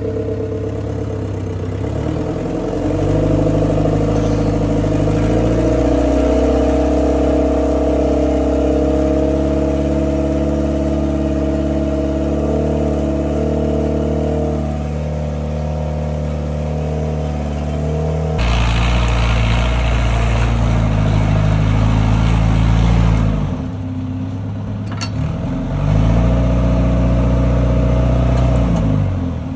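C4 cable skidder's diesel engine running and revving, its pitch climbing a few seconds in and again later, dropping back about 23 s in, revving up again about two seconds after, and easing off near the end. A sharp click sounds about 25 s in.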